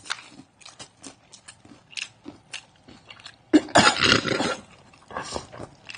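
Close-up mouth sounds of people biting into and chewing crispy fried chicken: short wet crunches and smacks. A louder burst lasting about a second comes about three and a half seconds in.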